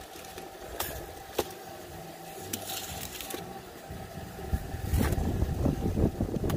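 Hand trowel working cement mortar: a few sharp taps and some scraping as the mix is loaded and pressed onto the wall. From about two-thirds in, wind rumbles on the microphone.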